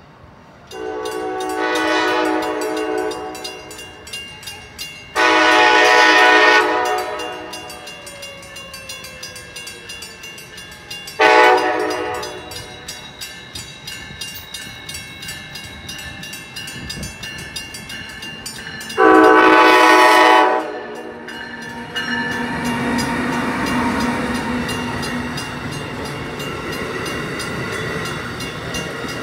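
Amtrak train horn sounding the grade-crossing signal as the train approaches: two long blasts, a short one, then a final long one. After the last blast the passenger cars roll past over the rails, and a grade-crossing bell rings rapidly throughout.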